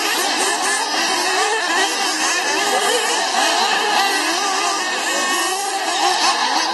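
Several 1:8 scale nitro RC buggies racing together, their small two-stroke glow engines whining at high pitch, the overlapping notes rising and falling as each car revs and lifts off.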